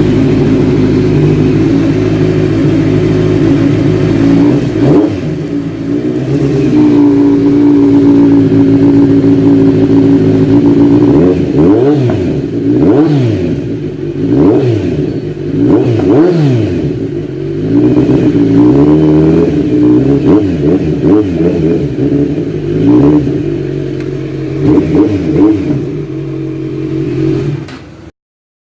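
Kawasaki Z1000 inline-four engine idling steadily, then revved again and again with quick throttle blips that rise and fall in pitch. The sound cuts off suddenly near the end.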